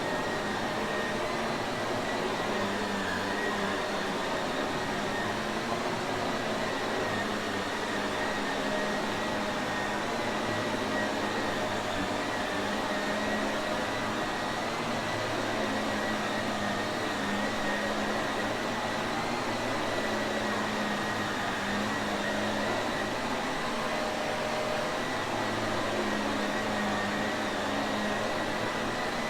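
Shark Navigator upright vacuum cleaner running steadily: an even rushing of air with a low hum and a faint high whine from the motor.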